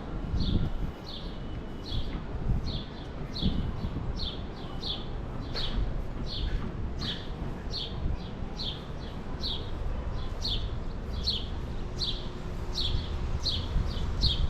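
Footsteps squeaking on dry beach sand: a short, high squeak sliding down in pitch at every step, about two a second and very regular, over a steady low rumble.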